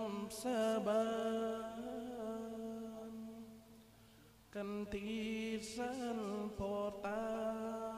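Nang talung puppeteer singing a verse in long, drawn-out, wavering notes. The phrase fades out about three to four seconds in, and a new one begins just before five seconds, with another at about seven.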